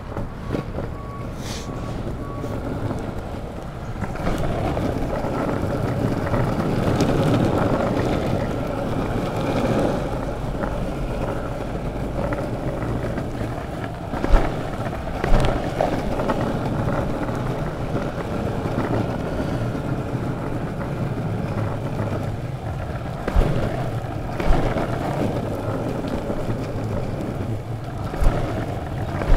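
Longboard wheels rolling over a paved path, a steady rumble with wind on the microphone. About five sharp knocks in the second half.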